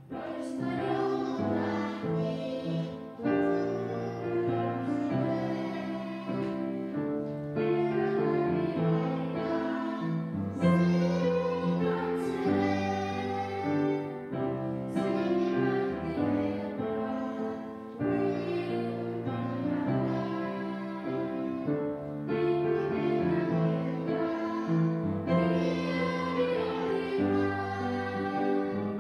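A children's choir singing a Finnish Christmas song with upright piano accompaniment.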